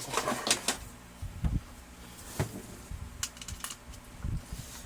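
Scattered light clicks and knocks of plastic parts being handled on a Brother DCP-L2540DW laser printer.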